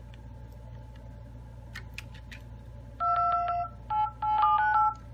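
Phone dialer keypad tones on a Huawei Y7 Prime 2020: each tap on the newly fitted touchscreen sounds a two-tone beep. A longer beep comes about three seconds in, followed by a quick run of shorter beeps. A few light handling clicks come before the beeps.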